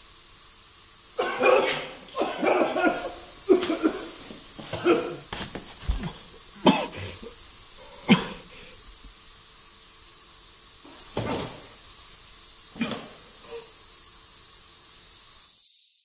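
Short, breathy bursts of a person's voice, close together for the first few seconds and then coming singly with longer gaps, over a steady high hiss. The hiss cuts off suddenly near the end.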